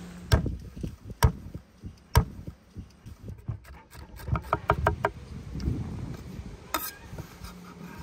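Chef's knife chopping garlic on an end-grain wooden cutting board. Three single heavy chops about a second apart, then a quick run of about eight chops in under a second, and one more sharp knock near the end.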